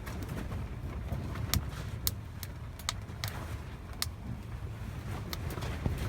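Burning firewood crackling, with sharp irregular pops about once a second over a steady low rumble.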